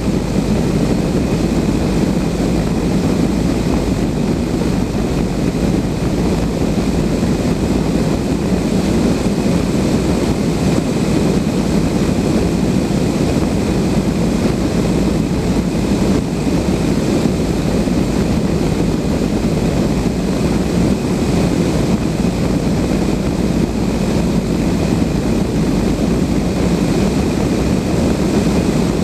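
Steady rush of airflow in the cockpit of a Blanik L-13 glider in flight, with a faint steady high tone above it.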